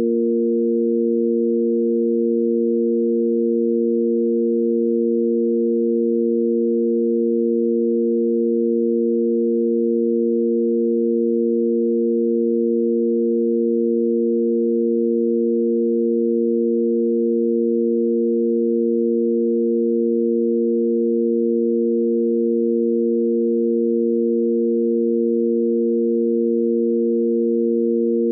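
Steady electronic sine-wave drone of three pure tones held together: the root A#, the fifth above it and the A# an octave up. It serves as a sine-wave stand-in for a tanpura's Sa–Pa–Sa drone, a pitch reference to sing against.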